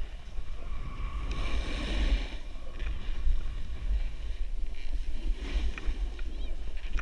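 Wind buffeting an action camera's microphone as the wearer slides down a groomed ski slope, a steady low rumble, with the hiss and scrape of edges on packed snow swelling and fading.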